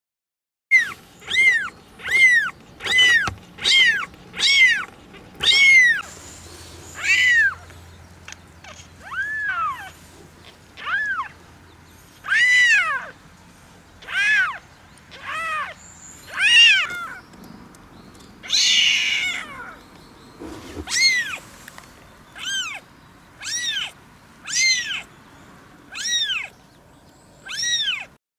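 Ten-day-old ginger kitten mewing over and over in high, thin calls, each rising then falling in pitch: about twenty in all, coming fastest in the first few seconds. One call about two-thirds through is harsher and rougher.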